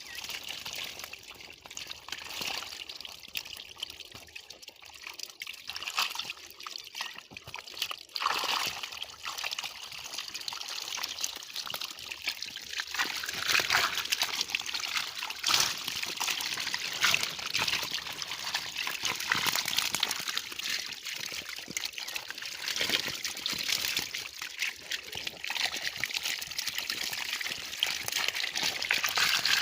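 Water trickling and pouring steadily, growing louder about halfway through.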